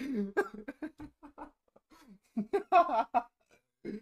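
A man laughing in short, broken bursts, some breathy and some voiced, with a louder stretch of laughter a little past halfway.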